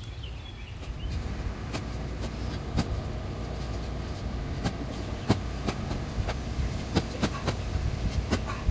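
Long-handled spade digging into soil and roots at the base of a shrub, with irregular sharp strikes and crunches, about one or two a second, over a steady low rumble.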